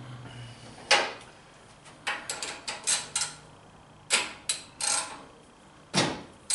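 Irregular sharp metallic clicks and clacks, single and in quick bunches, of a socket wrench being fitted onto and worked on a generator engine's oil drain plug.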